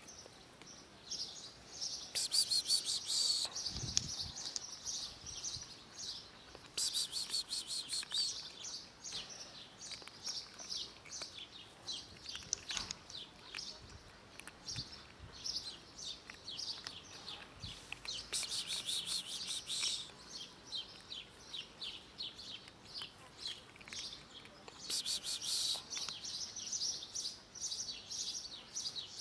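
Small birds chirping over and over, with a few denser, higher bursts of chirping lasting a second or two each; a brief low thump about four seconds in.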